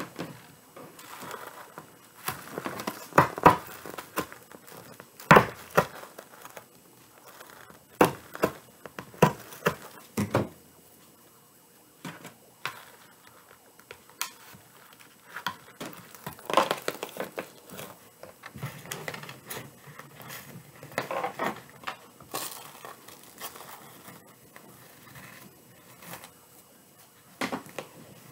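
Deco mesh rustling and crinkling as it is handled and wrapped onto a wreath, with irregular sharp taps and clicks scattered through.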